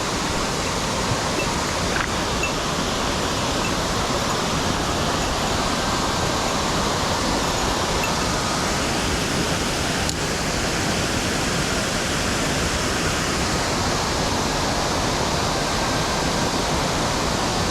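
Mountain headwater stream rushing steadily over rocks, an even wash of water noise.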